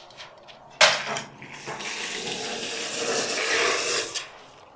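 Foam-adhesive gun hissing steadily for about two and a half seconds as it squirts expanding foam into the gap between a gas-block partition and a concrete wall. A short knock comes just under a second in.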